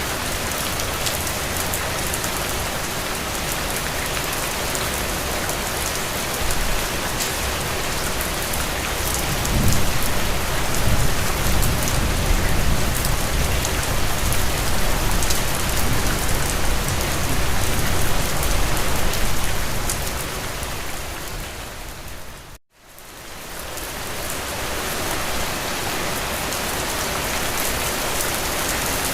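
Steady rain falling, a dense hiss of many drops on a hard surface. From about a third of the way in, a low rumble swells under the rain for roughly ten seconds, then fades. About three quarters of the way in, the sound briefly cuts to silence and fades back up, like an edit in the recording.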